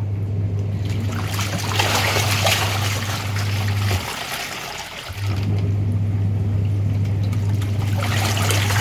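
Washing machine running with water sloshing: a steady motor hum that cuts out about four seconds in and starts again a second later.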